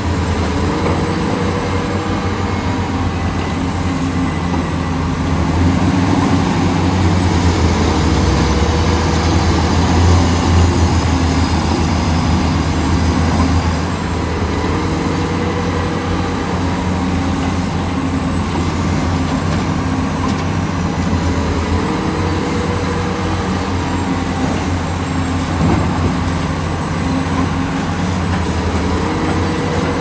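Diesel engine of heavy earthmoving machinery running steadily, growing louder about six seconds in and easing back a little before the halfway point. A rising, then steady, whine comes back about every seven seconds.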